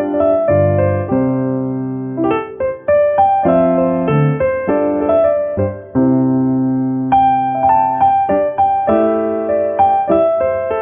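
Background piano music: notes and chords struck one after another, each dying away.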